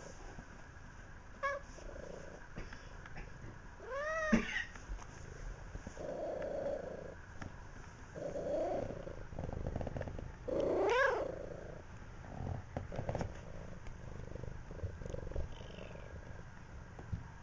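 Cat calling twice, a meow-like yowl that rises and falls about four seconds in and a louder one about eleven seconds in, with softer sounds between.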